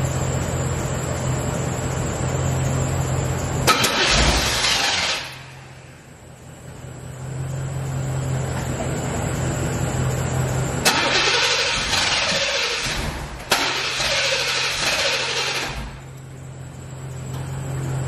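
C4 Corvette's tuned-port-injected V8 being cranked three times with the starter: each time it turns over and briefly catches, then dies, and it will not keep running. A steady low engine hum runs underneath between the attempts.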